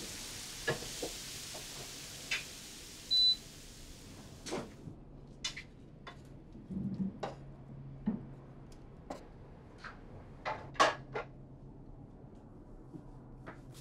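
Scattered sharp clicks and knocks of a door and cupboards being handled. Before them, a steady hiss stops about four seconds in, and a short high beep sounds around three seconds in.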